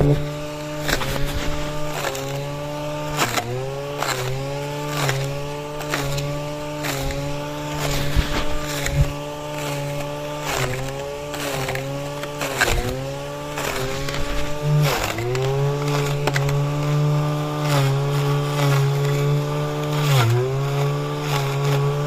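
Petrol brush cutter engine running fast and steady as it cuts grass. Its pitch dips briefly and recovers about every second, and there are repeated sharp ticks and snaps.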